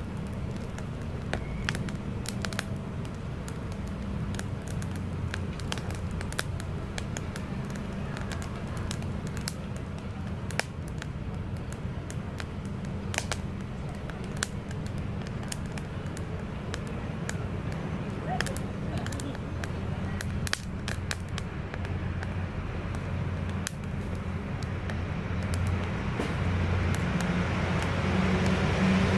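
Wood fire crackling in a Picogrill stainless folding fire stand, with irregular sharp pops over a steady low hum. A rushing noise grows louder near the end.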